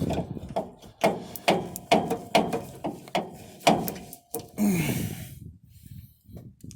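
A run of about nine sharp metallic knocks with a short ring, roughly two a second, as a new rear shock absorber is forced up into its mount under a pickup truck. They are followed near the five-second mark by a strained, falling grunt of effort.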